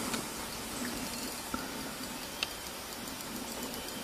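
Faint steady outdoor background hiss with a couple of small, brief ticks, one about a second and a half in and one about two and a half seconds in.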